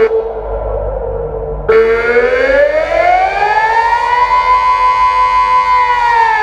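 Delta outdoor warning siren sounding the Austrian 'Alarm' signal, the rising-and-falling wail that means danger. The tone holds low for a moment, rises smoothly to a higher pitch, holds there and starts to fall again near the end.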